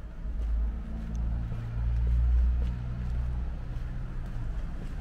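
A motor vehicle's engine passing close by: a low hum that swells to its loudest a little past halfway, then fades away.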